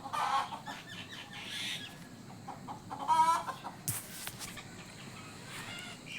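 A chicken clucking once in a short, quick-pulsing call about three seconds in, with a sharp knock just before four seconds.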